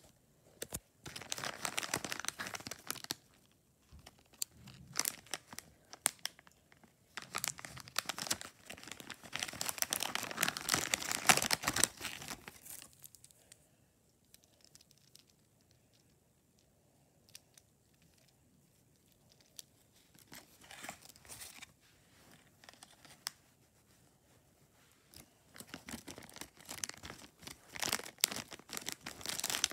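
Foil blind-bag packets being torn open and crinkled by hand. The crackling comes in spells through the first twelve seconds, goes quiet for several seconds in the middle, and starts again near the end.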